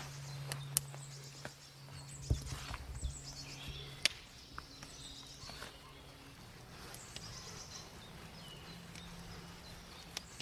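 Wooden spoon stirring flour and a yeast mixture into a stiff dough in an enamel bowl: soft scraping with irregular sharp knocks of the spoon against the bowl. Birds chirp faintly in the background.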